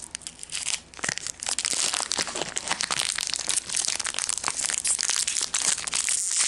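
A chocolate bar's wrapper being torn open and crinkled by hand: dense crackling that gets louder about a second in.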